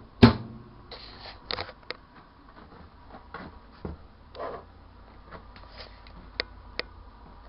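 Handling noise at an old microwave oven: one loud sharp knock with a brief low ring just after the start, then scattered light clicks, taps and rustles.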